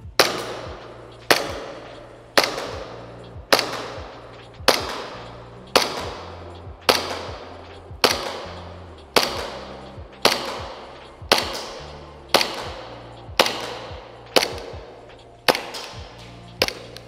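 Umarex Elite Force Glock 45 green gas airsoft pistol firing single shots at a steady pace, about one a second, each sharp crack echoing in a large concrete room as a magazine is emptied on one fill of gas. Background music underneath.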